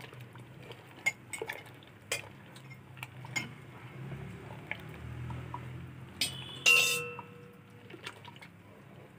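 Wooden spatula stirring rice simmering in milk in a metal pot, with scattered scraping clicks against the pot and one louder ringing metallic clink about two-thirds of the way through. A low steady hum runs underneath.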